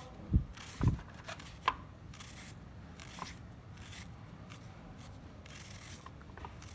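Kitchen knife slicing through a red onion held in the hand, a crisp cut about once a second. Two dull knocks in the first second are the loudest sounds.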